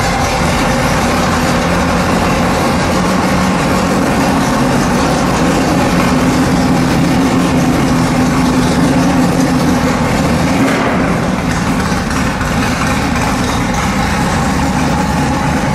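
1966 Ford GT40's 289 cubic-inch V8 race engine idling steadily and loudly.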